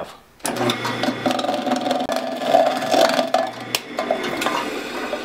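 Drill press running, its twist bit grinding and scraping sideways against the edge of a hole in a tin can's thin steel wall to enlarge it, a misuse of the bit. The steady motor hum stops a little before the end while the scraping goes on briefly.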